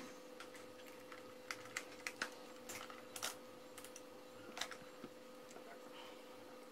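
Irregular light clicks and taps of tools and small parts being handled on a workbench, over a faint steady hum.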